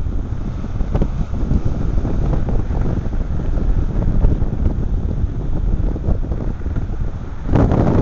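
Strong wind buffeting the microphone, over the wash of waves breaking on the rocky shore below. It rises and falls in gusts and gets louder near the end.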